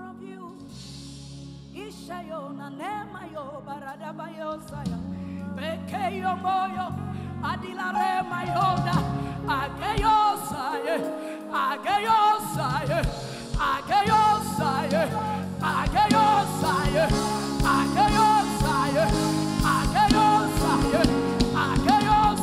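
Gospel worship music: a solo singer's voice over a sustained band accompaniment. About a third of the way through, a steady beat comes in and the music swells louder.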